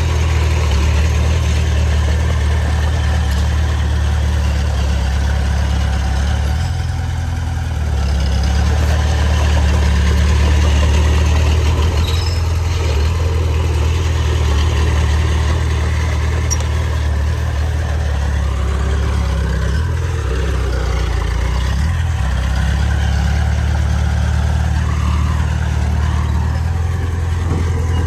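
Heavy diesel engine running steadily with a low, even note that shifts in pitch and level briefly a couple of times.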